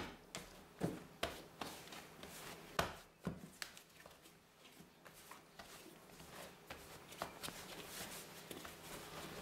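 Hands kneading a soft yeast dough on a floured wooden worktop: irregular soft thumps and slaps as the dough is pushed and folded onto the board, most of them in the first few seconds, then quieter handling.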